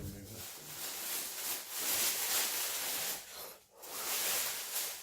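Packing material rustling as it is handled and unwrapped by hand, in two long stretches with a short pause between them.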